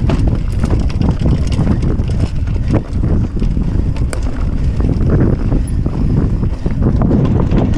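Wind rumbling on the camera microphone as a mountain bike rolls fast along a rocky dirt trail, with tyres crunching over loose stones and the bike rattling in many short sharp clicks and knocks.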